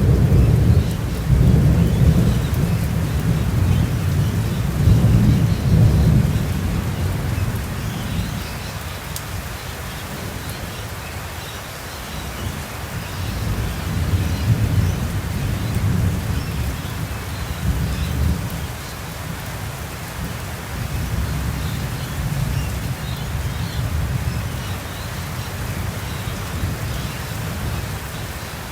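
Thunderstorm: steady heavy rain with long, low thunder rumbling, loudest in the first several seconds and then rolling on more weakly twice later.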